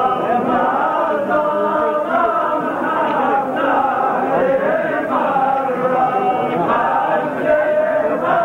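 Many men's voices chanting together, overlapping and sustained, without a pause.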